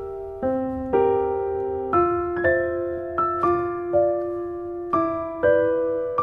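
Background music: a gentle keyboard melody with new notes struck about every half second to a second, each fading away.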